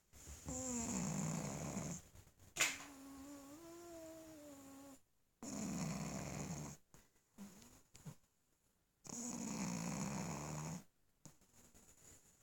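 A dog snoring loudly in its sleep: three rasping snores roughly four seconds apart, the first followed by a click and a long whistling note through the nose.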